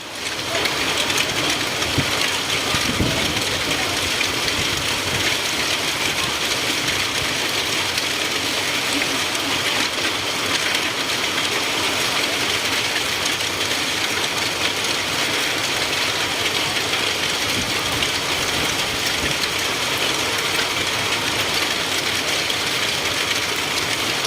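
Hailstorm: hailstones and heavy rain pelting down in a dense, steady clatter of countless small impacts, loud and unbroken.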